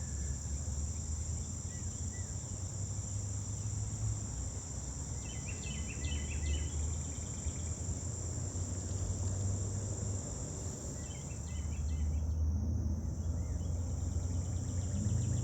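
Steady high-pitched chorus of crickets or similar insects, over a low rumble. Two short runs of quick chirps come about five seconds in and again about eleven seconds in.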